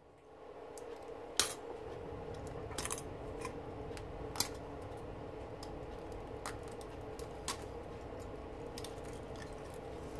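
Scattered light metallic clicks and scrapes from a knife being worked along a braided copper wire to strip its insulation by hand, over a steady background hum.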